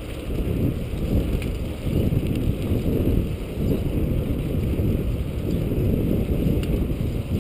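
Wind buffeting the microphone of a moving bicycle, a steady low rumble mixed with tyre noise on the paved trail.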